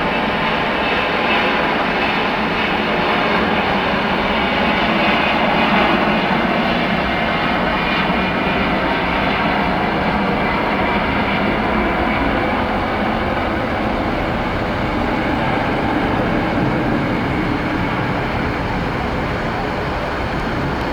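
Airliner engines running loud as a plane passes on the runway, loudest about six seconds in and then slowly easing off.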